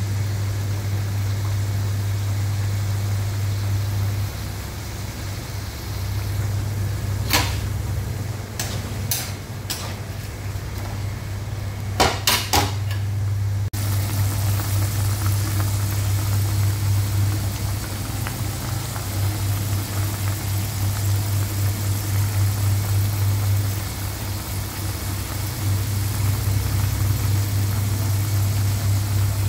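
A steady low hum under the soft hiss of pork adobo sauce simmering in a nonstick wok, the hiss plainer in the second half. A few sharp clicks or taps come in a cluster about 7 to 13 seconds in.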